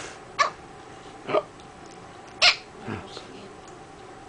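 Small hiccups: four short, sharp hiccups over about three seconds.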